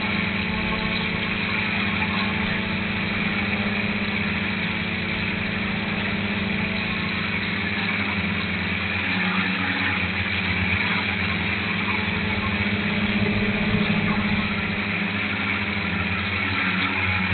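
Dromida Vista quadcopter's electric motors and propellers buzzing steadily in flight, heard close up through its onboard camera, with slight swells in level.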